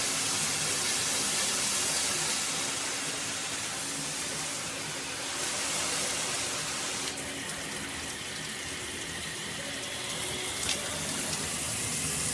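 Water spraying steadily from a high-pressure handheld shower head; the sound of the spray changes about seven seconds in, and there is a light click near the end.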